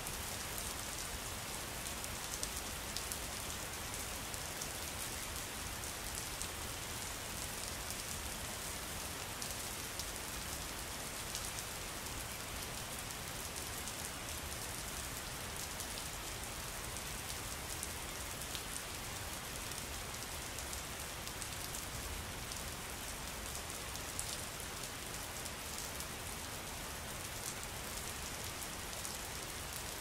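Waterfall: a steady rush of falling, splashing water with fine spattering.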